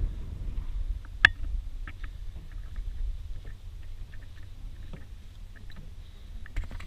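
Steady low wind rumble on the microphone, with scattered footsteps knocking on the wooden planks of a railway bridge walkway; one sharp knock about a second in is the loudest.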